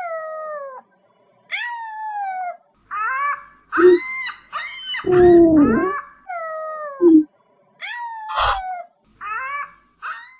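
Ostrich calls: a quick run of about a dozen short cries, most of them whining and falling in pitch, with a few brief lower hoots among them.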